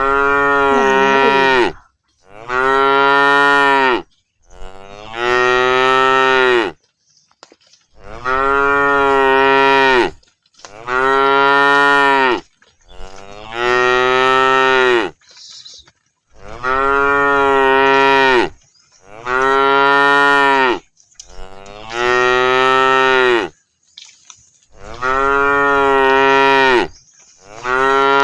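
Cows mooing: a run of about eleven long, loud moos, one every two and a half seconds or so, each call arching up and then falling a little in pitch.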